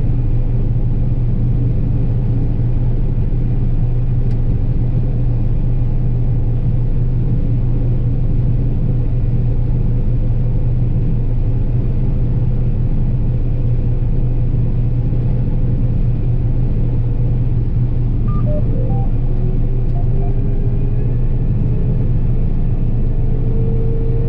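John Deere 9770 combine harvester running steadily under load while cutting soybeans, a loud unbroken low drone. A faint whine slowly rises in pitch near the end.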